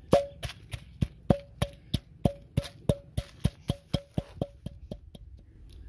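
Wooden pestle pounding dry-roasted whole spices (coriander seed, dried red chillies, cumin, black pepper) with salt in an unglazed clay mortar: steady knocks about three a second, each with a short ringing note from the clay bowl. The pounding stops near the end.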